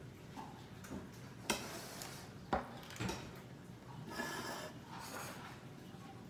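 Food being handled on a kitchen counter: a few sharp clicks and knocks of metal tongs and plates, then two short scraping rustles.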